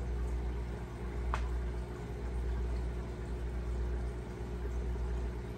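Steady kitchen background: a low hum under the hiss and bubbling of food cooking on the stove, with one light click about a second and a half in.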